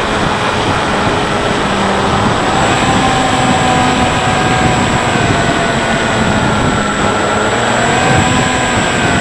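Bix3 RC plane's electric motor and pusher propeller running on a low landing approach, a steady whine whose pitch dips and rises a little as the throttle is worked, under heavy wind rush on the onboard camera.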